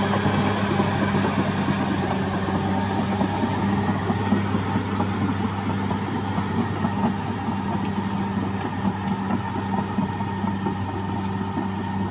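CAT D6R XL bulldozer's diesel engine running steadily, with a dense mechanical rattle over the engine's even drone.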